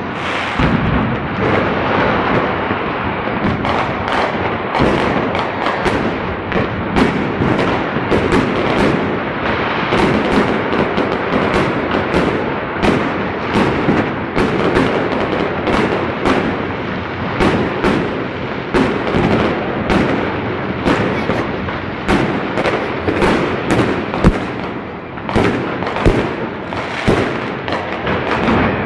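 Many fireworks and firecrackers going off at once: a continuous din of overlapping bangs and crackle, with one especially loud bang about 24 seconds in.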